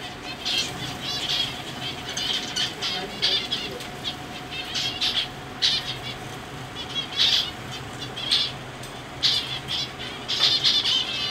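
A flock of small caged finches chirping, with many short, high calls coming in quick clusters throughout. A steady faint hum runs underneath.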